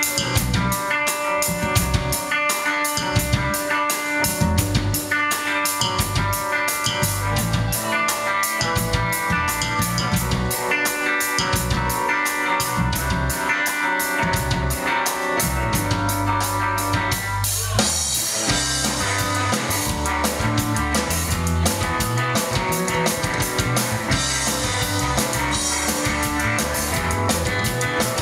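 Live rock band of electric guitar, bass guitar and drum kit playing. About two-thirds of the way in the pattern breaks and the cymbals come in much louder and busier.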